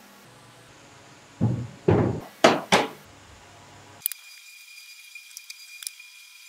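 Four heavy knocks in quick succession, about a second and a half in all. After them, a few light clicks of wooden blocks being set down on a tabletop.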